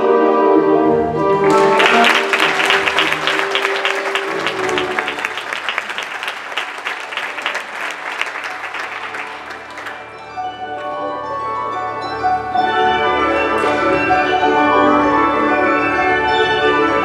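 Orchestral music ends, and audience applause follows for about eight seconds, thinning out. About ten seconds in, orchestral music starts again for the next dance.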